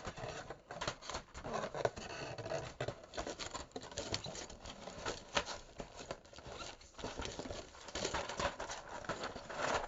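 Rustling, scraping and clicking of plastic packaging and keycaps being handled and pushed back into their box, in uneven bursts.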